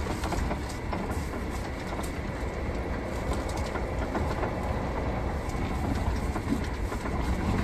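Sprinter van driving on a gravel road, heard inside the cab: a steady low rumble of engine and tyres, with scattered small ticks from gravel under the wheels.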